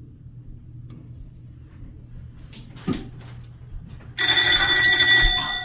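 A low steady hum, a single click about three seconds in, then a loud bell-like chime with several ringing pitches that starts suddenly about four seconds in, holds for about a second, and fades away slowly.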